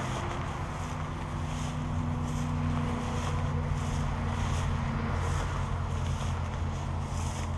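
Footsteps swishing through tall dry grass at an even walking pace, about four steps every three seconds, over a steady low hum.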